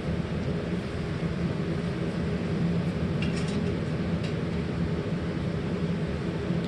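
Forge running with a steady rushing noise and a low hum while the steel is reheated in it.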